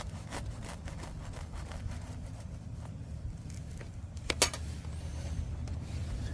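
Steady low rumble, like wind on the microphone, with scattered small clicks and one sharp knock about four seconds in.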